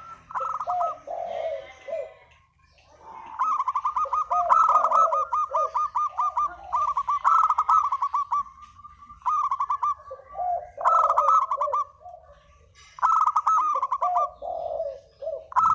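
Spotted doves (derkuku) calling in repeated bursts: quick runs of rapid notes with lower coos between them, broken by short pauses.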